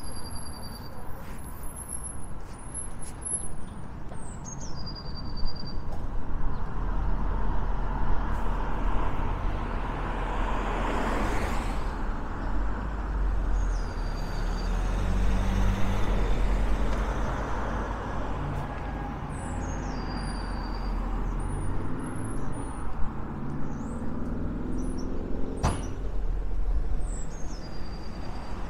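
Cars passing on a town road, one going by close about eleven seconds in, followed by a car engine's low rumble that rises in pitch as it pulls away.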